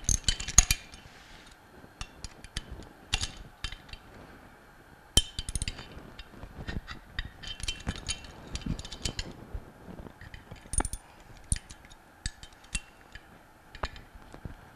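Ratcheting box-end wrench clicking in irregular short runs as it loosens the bolts on a pump bearing-frame cover plate, with a few sharper metal clinks of the wrench against the housing.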